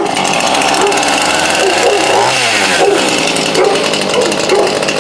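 Husqvarna two-stroke chainsaw running at speed, with a brief change in engine pitch about two seconds in.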